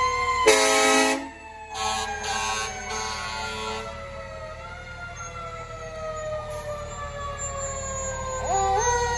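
Fire engine siren, its wail sliding slowly down in pitch, then climbing sharply again near the end. A loud horn blast sounds about half a second in, with a shorter one after about two seconds.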